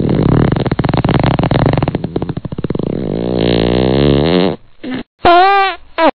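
Fart sound effect: a long, buzzy rasp that turns into a wavering pitched tone and cuts off, then a short pitched note that rises and falls near the end.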